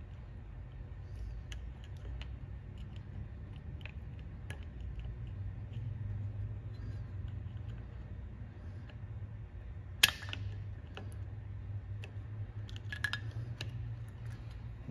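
Small metallic clicks and clinks of needle-nose pliers working a cotter pin out of the castellated axle nut on a Triumph TR3 front hub, with one sharp click about ten seconds in and a few more near the end. A low steady hum runs underneath.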